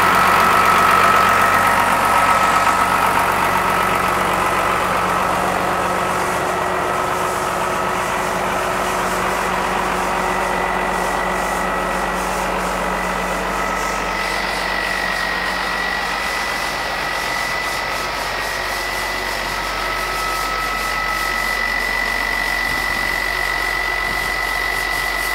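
Massey Ferguson 6485 tractor's six-cylinder diesel engine idling steadily, with a steady high whine over it.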